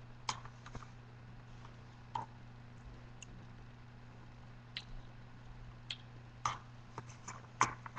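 Eating sounds from spooning yogurt out of a plastic cup with a metal spoon: scattered small clicks and smacks at irregular intervals, the loudest near the end.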